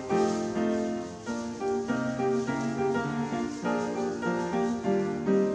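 Background instrumental music, led by piano notes playing a melody over chords.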